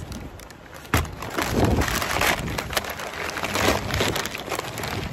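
Paper takeout bag and food wrapping paper crinkling and rustling as they are handled and opened, with a sharp crackle about a second in.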